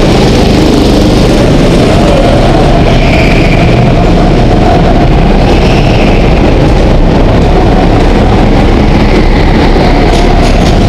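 Go-kart engine running under load, heard from on board the kart. It is loud and overloaded on the camera's microphone, and its pitch rises and falls a little.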